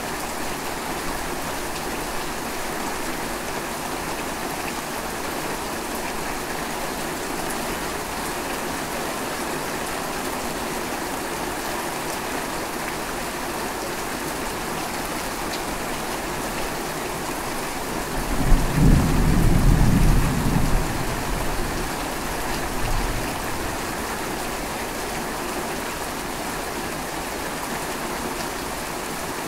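Steady rain falling in a thunderstorm. About two-thirds of the way through, a roll of thunder rumbles for about three seconds, then a fainter rumble follows.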